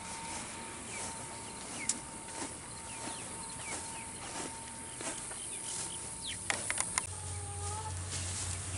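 Outdoor rural background: small birds chirping faintly and insects, broken by a few sharp clicks. A low hum comes in about seven seconds in.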